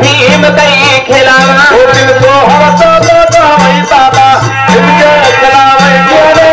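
Folk dance-troupe music: dholak drumming with dense, quick rattling percussion, a melody line, and a low bass that steps back and forth between two notes about once a second.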